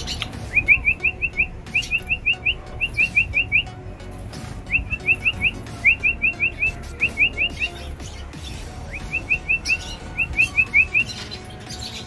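Small finch chirping: short, clear rising chirps in quick runs of four or five, repeated about eight times with brief pauses between runs.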